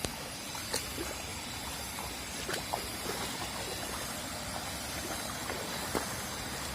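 Steady rush of flowing river water, with a few faint clicks and knocks.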